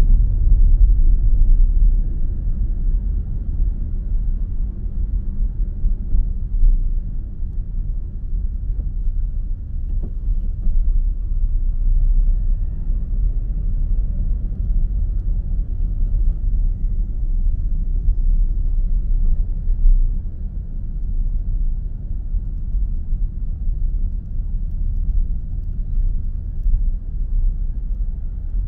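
Low, steady rumble of a car driving along a city road, heard from inside the cabin.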